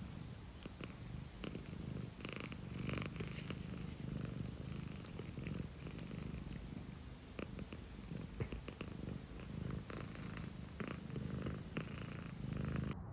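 A domestic cat purring steadily, with a few faint clicks.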